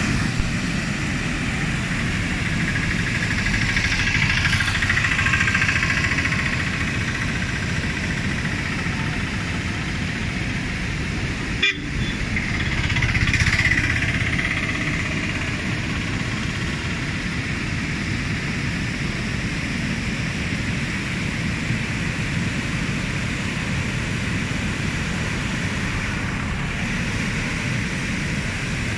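Steady rush of water pouring over a low concrete weir. The noise swells louder twice, around five seconds in and again around thirteen seconds, and briefly drops out just before the second swell.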